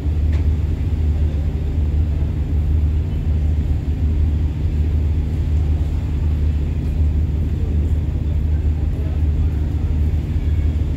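Steady low drone of the KMP Legundi ferry's engines while under way, even in level throughout.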